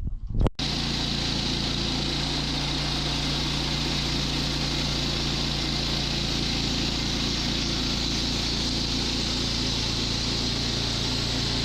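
Woodland Mills HM122 portable sawmill's gas engine running steadily at a constant pitch. It cuts in suddenly about half a second in.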